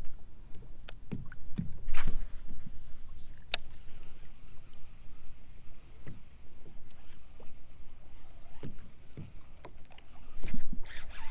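Scattered knocks and clicks of gear and hands moving on a fishing kayak on the water, over a low rumble, with one sharp click about three and a half seconds in.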